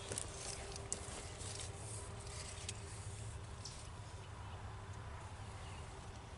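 Faint outdoor background: a steady low rumble with a faint steady hum and a few light clicks and rustles of handling.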